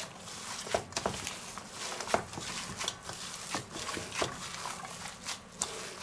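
Gloved hands kneading seasoned minced meat in a stainless steel bowl: irregular soft squishes and slaps, about one or two a second.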